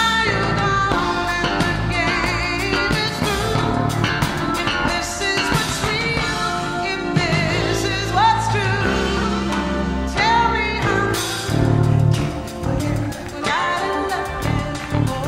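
Live soul-pop band music with bass, drums and keyboards, with a voice sliding up into held, wavering high notes several times over the groove.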